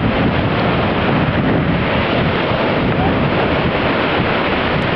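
Mediterranean surf breaking and washing over the shallows: a steady, loud rush of waves and foam.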